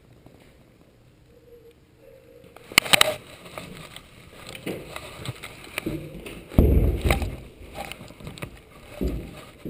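Footsteps crunching and swishing through deep snow, irregular and close. Preceded by a couple of sharp clicks about three seconds in, with a loud low bump about seven seconds in.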